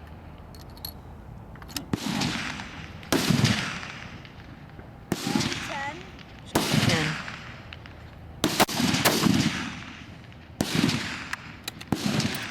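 Several rifles on a long-range firing line shooting: about seven sharp reports at uneven gaps of one to two seconds, each followed by a long echoing tail.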